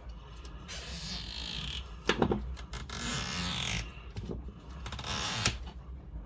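Small hands-on work on a laptop: two spells of scratchy scraping or rustling, with a sharp knock about two seconds in and a click near the end.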